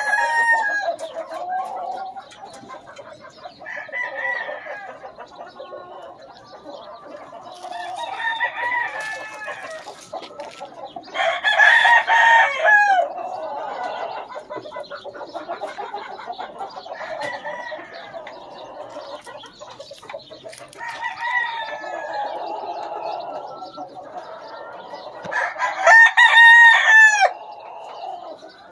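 Gamefowl roosters in flight pens crowing in turn, about six crows with the loudest near the middle and near the end. Softer chicken calls fill the gaps between them.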